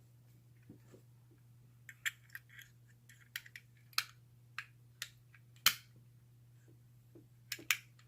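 Irregular sharp metallic clicks and taps of a lock pick and a screwdriver working the levers and bolt of an old Squire four-lever brass-lever padlock, the loudest a little before six seconds in. A steady low hum lies underneath.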